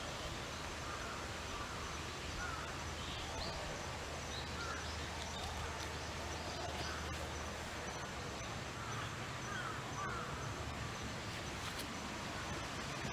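Outdoor ambience: a steady hiss with scattered short bird calls throughout. A low steady hum underneath stops about halfway through.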